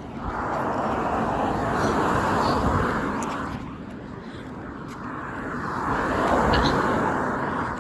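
Two road vehicles passing one after the other, each a swell of engine and tyre noise that rises and fades away, with no horn sounding.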